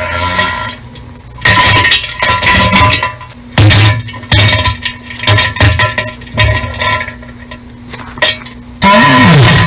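Diarrhea sound effect: a series of wet, sputtering bursts. There is a long one early, several shorter ones, and a loud final burst near the end whose pitch slides downward.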